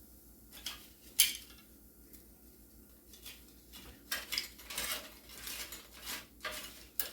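Metal clinks and scraping as the air fryer basket holding the chickpea burgers is handled and the patties are checked: one sharp clack about a second in, then repeated clattering from about four seconds in.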